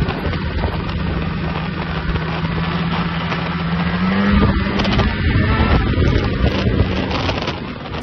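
Snowmobile engine running at trail speed, a steady drone that rises in pitch and grows louder about four seconds in as the throttle opens, then eases off near the end.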